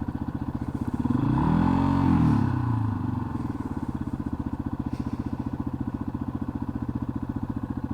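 Yamaha XT250's single-cylinder engine running with an even, rapid pulsing. Between about one and three seconds in, a second engine sound swells, rising and then falling in pitch, over the steady pulsing.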